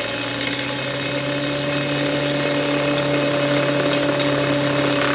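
An angle grinder runs at full speed with a disc of spoons spinning on it, flinging porridge. The note holds steady and unbroken.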